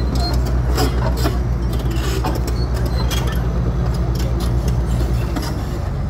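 A heavy engine running steadily with a low drone, with scattered knocks and rattles over it; the drone shifts about five and a half seconds in.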